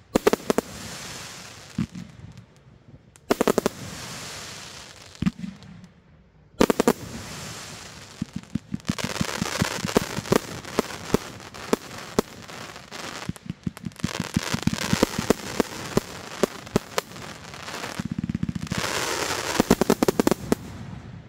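Corona Killer 318-shot firework cake firing: volleys of shots launching and bursting over a crackling hiss, with a brief lull about six seconds in and rapid strings of shots about nine seconds in and again near the end.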